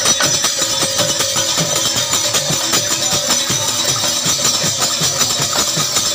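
A two-headed barrel drum and a pair of small brass hand cymbals playing a dense, continuous dance rhythm together, with the cymbals' ringing on top.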